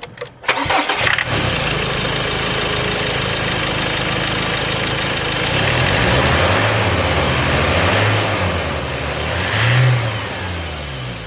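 Ford Ranger engine starting after a few short clicks, then running steadily, with the revs rising and falling twice, now with a new intercooler pipe fitted in place of the split one.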